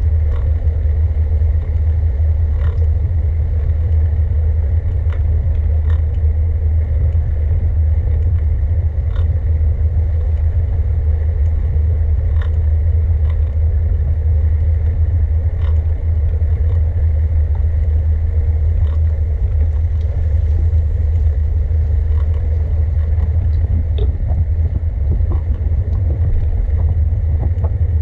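Steady low rumble of wind and road noise on the microphone of a camera riding along on a bicycle, with occasional faint clicks and rattles.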